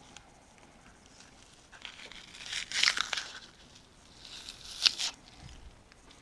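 Two short bursts of rustling, crinkling noise about two seconds apart, the second ending in a sharp click.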